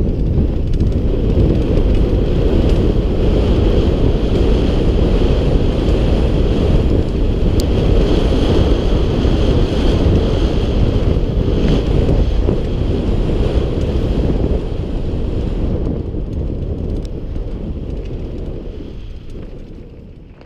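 Wind rushing over a helmet-mounted camera's microphone at riding speed, with a steady low rumble from the rough gravel trail and a few small ticks; it tapers off near the end.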